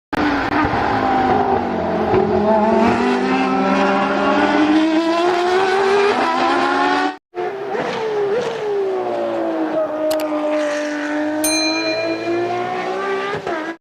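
Race car engine revving, its pitch climbing steadily for about seven seconds before cutting off sharply. After a brief gap a second run dips and then climbs again. A high ringing tone joins in near the end.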